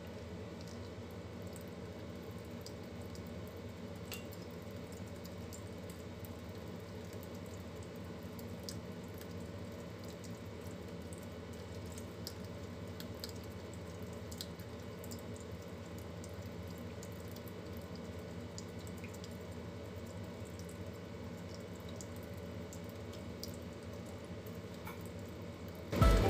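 Kitchen tap running a thin, steady stream of water into a stainless steel sink, with a few faint small ticks over it.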